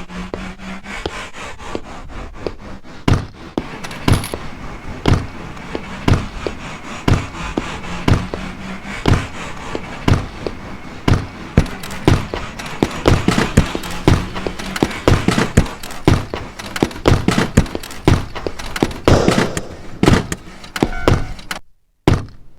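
A beat sequenced on an Elektron Octatrack sampler from recorded everyday sounds such as door knocks, slams and rattles. It has a steady pulse of about one strong hit a second, with lighter clicks and clatter between the hits. The pattern gets busier partway through and cuts out briefly near the end.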